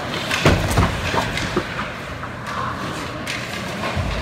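Ice hockey scramble in front of the net: skates scraping the ice, with sticks and bodies clacking and thudding several times, the loudest knocks about half a second to a second in.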